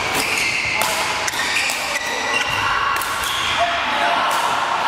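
Badminton rackets striking shuttlecocks in sharp, irregular hits across several courts, with shoes squeaking on the court floor and players' voices echoing in a large hall.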